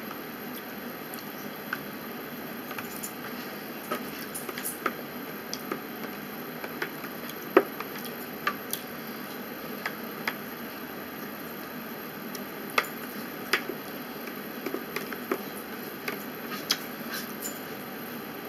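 Eating at a table: scattered sharp clicks and taps of a fork against a plastic takeout tray, with small handling noises of food and wrapping, over a steady background hiss. One click about seven and a half seconds in is the loudest.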